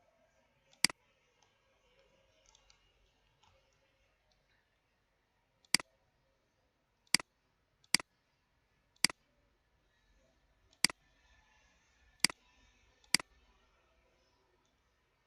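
Computer mouse clicking, eight separate sharp clicks at irregular intervals, each a quick press-and-release double tick.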